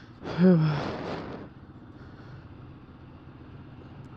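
Steady road and traffic noise, with one loud, short tone about half a second in that dips slightly in pitch and fades within a second.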